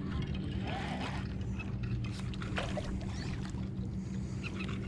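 Boat motor humming steadily at low speed, with a few faint ticks over it.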